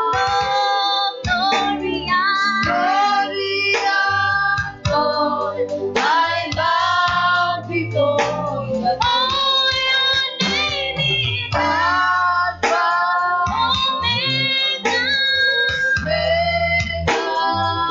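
Worship song: a woman's sung voice over a band with guitar and a steady bass line.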